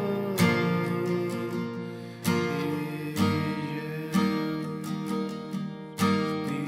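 Background music: a song's instrumental passage of strummed acoustic guitar chords, a new chord struck about once a second.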